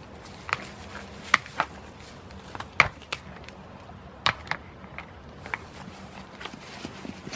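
Goat hooves stepping and clicking: about a dozen sharp, irregular knocks and taps, loudest nearly three seconds in and again a little after four seconds, over a faint steady background.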